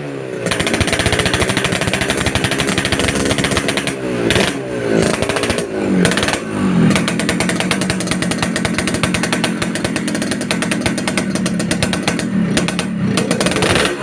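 Yamaha RX-King 135cc two-stroke single-cylinder engine running through a CWK hollowed aftermarket exhaust with a crisp, rasping note. It is blipped a few times about four to six seconds in, the pitch falling back after each, then held at a steady rev before easing off near the end.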